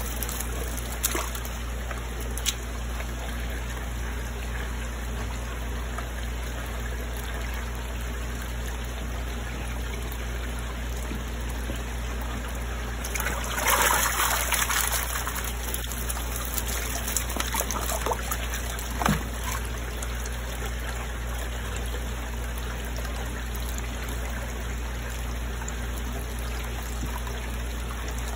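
Water trickling steadily into an aerated koi fry holding tub over a constant low hum. About halfway through, a louder burst of water lasts a second or two.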